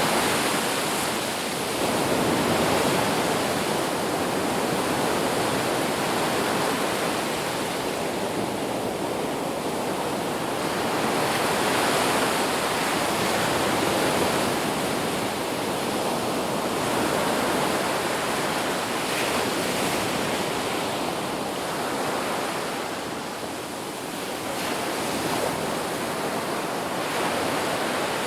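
Ocean surf washing onto a beach: a continuous rushing of breaking waves that swells and eases every few seconds.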